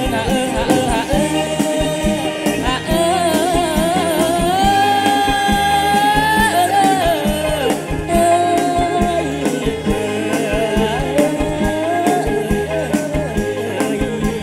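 Live kantrum band music from northeastern Thailand: a singer carries long, wavering held notes over a full band with a steady drum beat.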